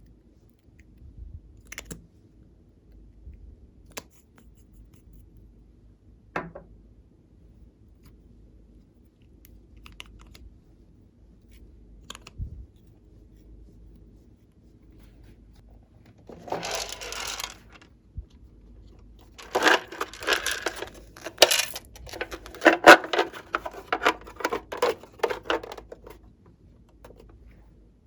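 Glossy slime being worked by hand: scattered soft clicks and pops, a short burst of sticky crackling past the middle, then several seconds of dense crackling and popping, the loudest part, near the end.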